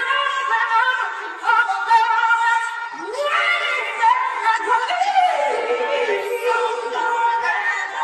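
Female voice singing unaccompanied, with long held notes that waver and glide up and down in pitch; the vocals are isolated from a live concert mix with the band removed, so there is no bass underneath.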